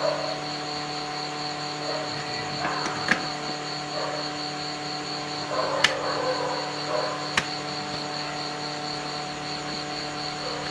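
Steady electrical hum with a faint high whine, broken by three sharp clicks about three, six and seven and a half seconds in.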